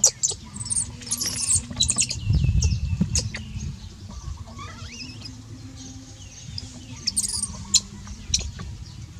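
Baby monkey giving short, high-pitched squeaks and chirps that rise and fall in pitch, in a cluster near the start and again about seven seconds in, with a low rumble underneath that is loudest two to three seconds in.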